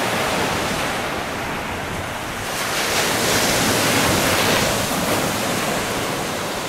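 Surf washing on a beach, a steady rush that swells louder for about two seconds from roughly two and a half seconds in, with some wind on the microphone.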